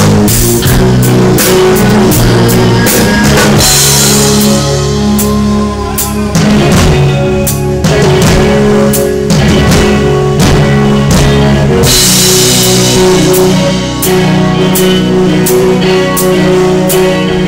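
Live heavy metal band playing loud, heard close to the drum kit: a steady beat of drum hits with cymbal crashes about four seconds in and again near twelve seconds, over sustained electric guitar and bass notes.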